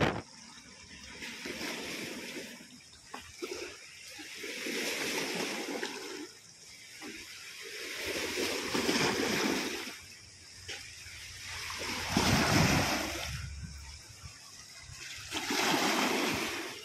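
Muddy floodwater of the swollen Mahanadi River washing up over the rocks of the bank in waves, each surge swelling and falling back about every three to four seconds.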